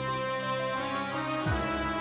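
Dramatic background music: sustained held chords that change to a new chord about one and a half seconds in, with a brief low sweep at the change.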